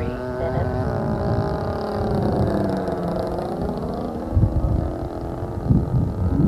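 DLE 20cc single-cylinder two-stroke gas engine of an RC model airplane running in flight; its pitch sags around the middle and climbs again. A few low thumps come near the end.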